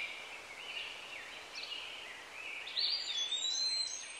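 Birds singing: short chirps and whistled notes over a faint steady hiss, with a louder run of high whistles about three seconds in.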